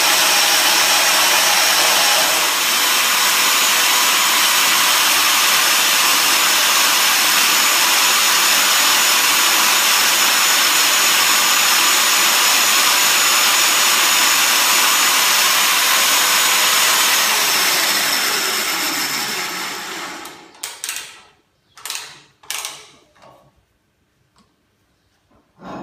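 KRAIS PanelMill-PF portable tube milling machine running steadily with a high whine as its three-insert carbide head cuts Inconel cladding off a 2.5-inch tube. About 18 seconds in the motor winds down, falling in pitch, and stops. Then come a few sharp metal knocks and clanks as the machine is handled.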